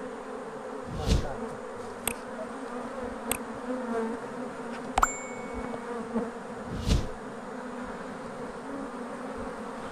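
A dense swarm of honey bees buzzing steadily around an open Langstroth hive box. A few short knocks and bumps cut through it, about five in all, the loudest near one second in and near seven seconds in.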